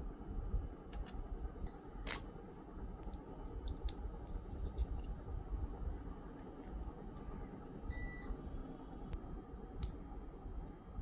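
Low rumbling handling noise with scattered light clicks, one sharper click about two seconds in, and a short high beep about eight seconds in.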